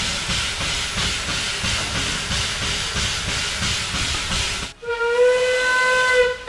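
Narrow-gauge steam locomotive hissing steadily, then about five seconds in its steam whistle blows one long, steady note.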